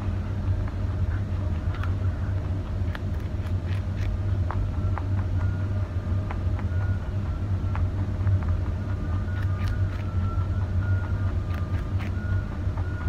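A steady low hum, the loudest sound, with scattered faint clicks of a rabbit gnawing and chewing a carrot.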